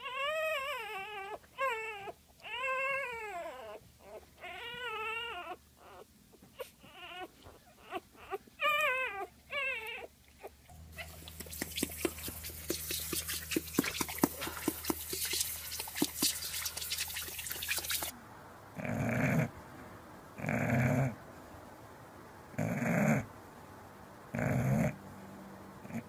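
A dog whining in long, wavering, warbling cries for about ten seconds. Then a hissing spray with a low hum for about seven seconds, and then an English bulldog snoring, one snore about every two seconds.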